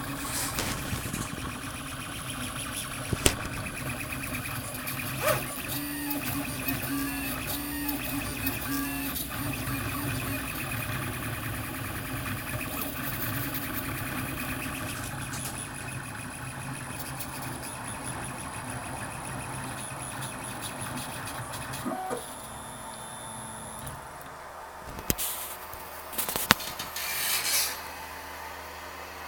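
3D printer at work: stepper motors whirring with shifting tones as the print head moves. About three-quarters of the way through it drops to a quieter steady hum, with a few sharp clicks and a brief rush of noise near the end.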